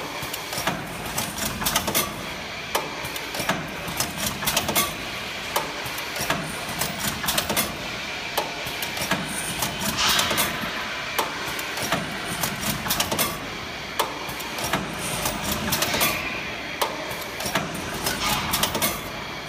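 ZGTEK R-6-300 automatic ring forming and welding machine running through its cycles of feeding, bending and welding steel wire: steady mechanical noise full of frequent sharp clanks and clicks, with louder hissing stretches about halfway through and again near the end.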